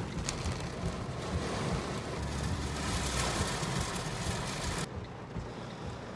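Torrential rain pelting a car's windows and roof, heard from inside the car as a loud, even hiss over a low rumble. About five seconds in the hiss cuts off sharply, leaving only the low rumble of the car interior.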